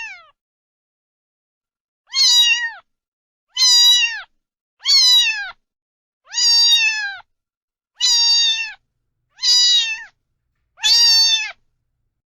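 Domestic cat meowing seven times, about one call every second and a half, each call dropping in pitch at its end.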